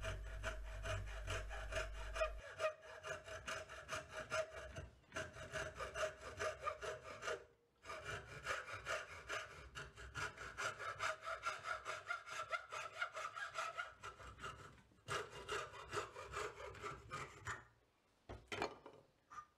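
Hacksaw blade cutting across a thin pine strip held in a vise, rasping back and forth in quick, even strokes with a few short pauses; the sawing stops near the end as the piece is cut through.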